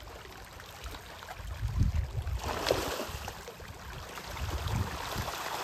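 Splashing and churning water from a crowd of farmed fish thrashing at a pond's surface as feed is thrown in. It starts about halfway through and builds, after a few low rumbles.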